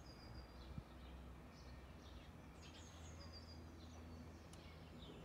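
Faint outdoor ambience: small birds chirping and trilling in short repeated phrases over a low steady background hum, with one brief click about a second in.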